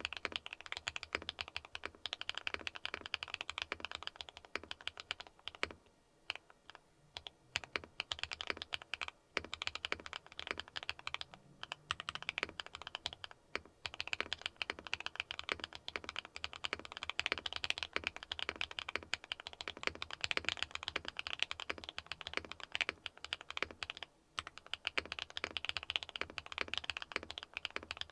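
Typing test on a Neo 70 mechanical keyboard fitted with Akko x HMX Mirror linear switches (factory-lubed, POK long-pole stems): a fast, continuous run of keystroke clacks with a few short pauses.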